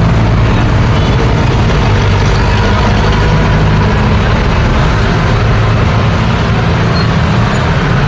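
Street traffic at close range: motor scooters pulling away and a large box truck's engine running as it turns across, a steady loud mix of engine noise.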